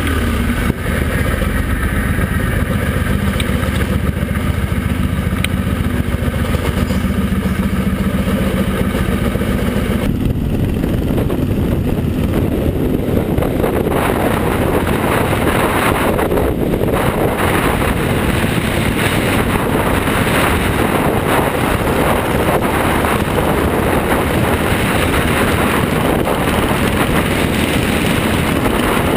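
Motorcycle engine running at low speed with steady, even engine tones as the bike moves slowly inside a rail shuttle carriage. About ten seconds in this gives way to a motorcycle riding at speed on an open road, its engine drone mixed with constant wind and road noise on the bike-mounted microphone.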